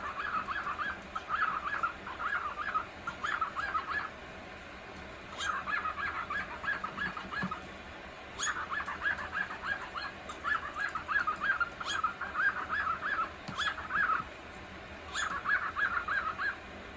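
Male cockatiel calling in runs of short, quick chirps, about four or five a second, in repeated phrases of a few seconds with brief pauses between. He is the bird that 'adds sound effects' while the female air-bathes.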